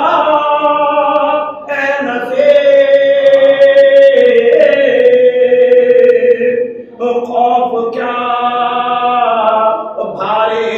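Mourning recitation chanted in long, drawn-out held notes, with a short break about seven seconds in.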